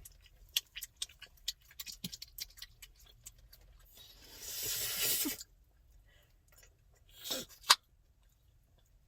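Chewing gum being chewed and smacked, with many small wet clicks. A hiss lasts about a second, four to five seconds in, and near the end comes a single loud, sharp gum pop, cracked by sucking air through the gum.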